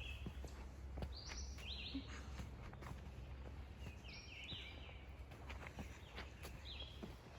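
Small songbirds chirping in the woods, several quick chirps in a few short clusters, over a faint steady low rumble and scattered light clicks.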